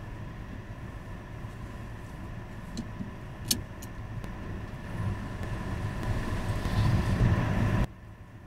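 Car cabin with a steady low engine hum and a few sharp clicks about three and a half seconds in, the seatbelt being buckled. Then a low rumble builds and cuts off suddenly near the end.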